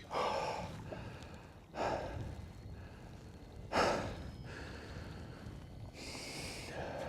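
A man's short, sharp breaths and gasps, about five of them, the loudest about four seconds in: tense breathing while he plays a hooked pike from a kayak.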